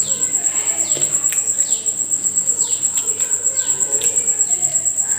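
A steady, high, pulsing insect trill like a cricket's, with a short falling chirp about once a second. Two sharp clicks come partway through.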